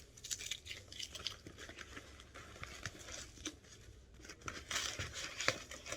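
Packing paper rustling and crinkling as it is handled, with scattered light taps and clicks.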